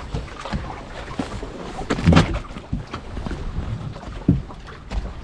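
Scattered knocks and thumps of people climbing about in a small fibreglass boat, the loudest a heavy thump about two seconds in and another near the end.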